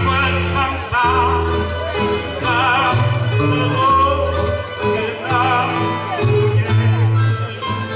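Traditional Azorean challenge song: an acoustic guitar and two smaller plucked string instruments play a steady strummed accompaniment with a plucked bass line, and a man's sung voice wavers in vibrato over it at several points.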